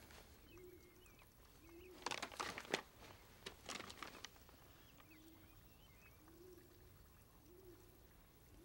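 Quiet room ambience with birds calling faintly: short low calls about every second and a few tiny high chirps. Paper rustles twice briefly, about two and three and a half seconds in.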